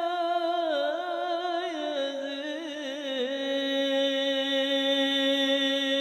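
A male solo voice singing an Arabic sholawat into a microphone, with no instruments: a wavering melismatic run for about three seconds, then one long held note.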